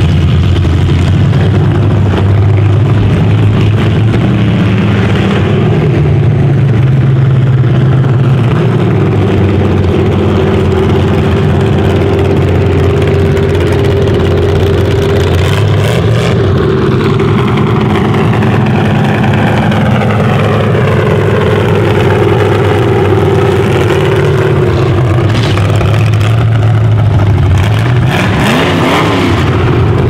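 Demolition derby car engine running loudly as the car drives slowly past, its note mostly steady and rising briefly near the end.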